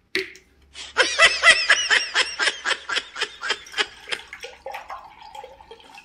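A burst of rhythmic laughter, about four laughs a second, starting about a second in and tailing off after about three seconds, followed by a faint, slightly rising tone.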